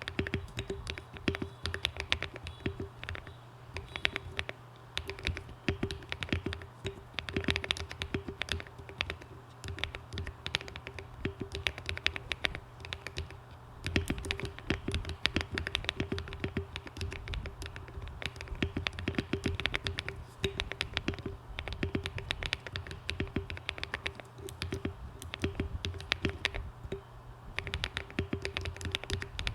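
Continuous typing on a Monsgeek M1 aluminum-cased mechanical keyboard with hand-lubed Akko Cream Yellow linear switches, tape-modded, with ASA-profile keycaps: a steady run of irregular key clacks.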